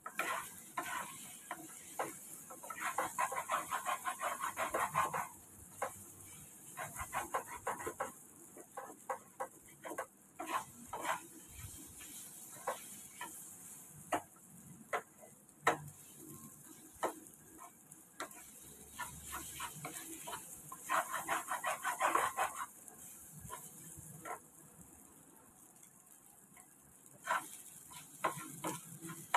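Wooden spatula knocking and scraping against a frying pan as bitter gourd and egg are chopped and turned, over a steady sizzle of frying. Two spells of quick repeated strokes: a few seconds in and about two-thirds of the way through.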